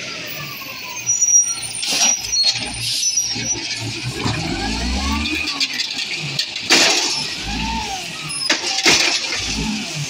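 Automated side-loading arm on a 1999 Peterbilt 320 diesel garbage truck gripping and lifting a recycling cart. The hydraulics whine and squeal in rising-and-falling glides over the running diesel engine, with four loud clanks and bangs as the cart is handled.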